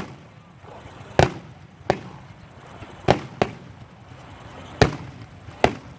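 Fireworks display shells bursting: about seven sharp bangs at irregular intervals, a couple in quick pairs, each with a short echoing tail.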